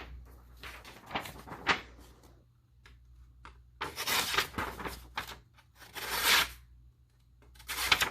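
Spyderco Tenacious folding knife blade slicing through a material in about four separate cutting strokes, each a short rasping swish.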